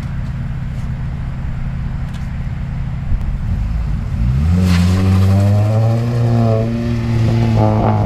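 Car engine idling, then revving up about three seconds in and running hard under acceleration, its pitch rising and then holding high.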